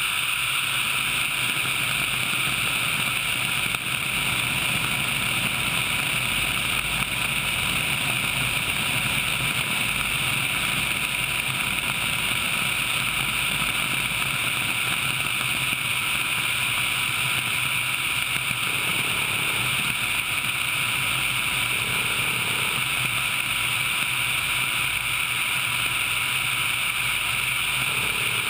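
Sikorsky HH-60 Pave Hawk helicopter in flight: its twin turboshaft engines and rotor make a loud, steady noise mixed with wind rush on a camera mounted outside the airframe, with a thin, steady whine throughout.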